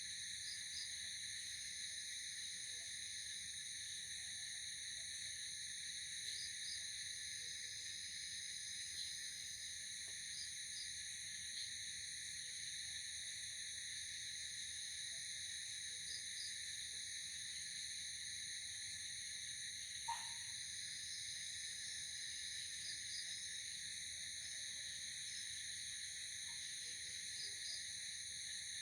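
Night insect chorus of crickets: a steady, high-pitched trilling drone at several pitches at once, with short double chirps every few seconds and one brief louder call about twenty seconds in.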